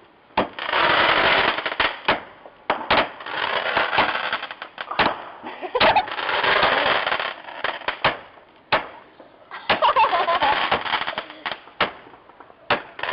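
Consumer fireworks going off: a string of sharp bangs and cracks, separated by bursts of crackling hiss.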